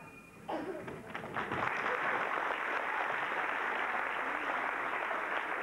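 The last note of the music dies away, then audience applause builds up over about a second and carries on steadily.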